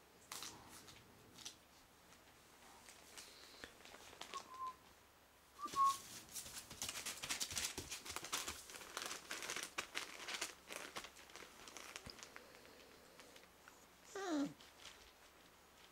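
Newspaper crinkling and rustling under a three-and-a-half-week-old puppy moving about on it, busiest from about six to twelve seconds in, with a couple of tiny squeaks before that. Near the end the puppy gives one short whine that falls in pitch.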